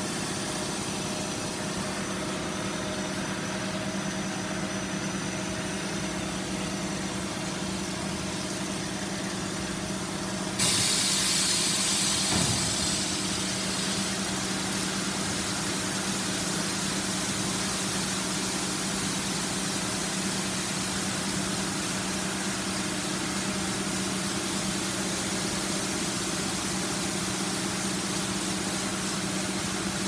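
GOLDFIST automatic carpet washing machine running: a steady electric motor hum under the hiss of water jets spraying onto the rotating brushes and the rug. About ten seconds in, a louder hiss starts suddenly, easing a little after a few seconds but staying on.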